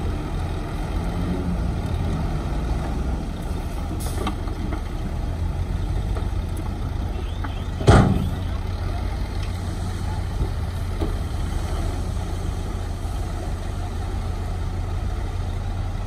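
Heavy diesel construction machinery running steadily with a low engine drone. A sudden loud burst comes about halfway through.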